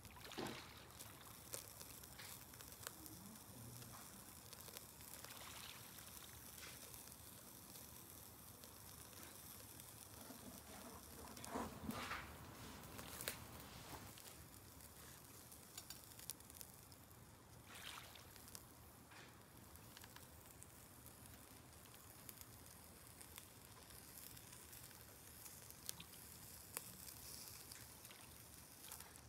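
Charcoal grill (shichirin) with chicken gizzard skewers: faint crackling over a soft hiss, with scattered sharp little pops and a louder stretch of crackle about twelve seconds in.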